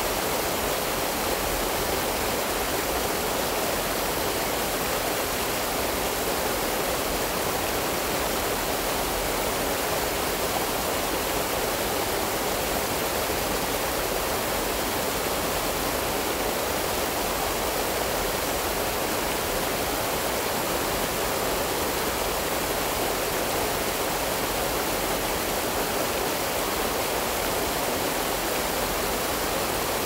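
Rocky forest stream rushing steadily over stones, an even, unbroken wash of water.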